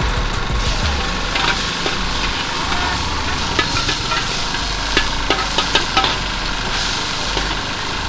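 Prawns sizzling in hot oil in a large wok for char kuey teow, over a steady low rumble. A metal wok spatula stirs, scrapes and clanks against the pan, with a quick run of sharp knocks between about five and six seconds in.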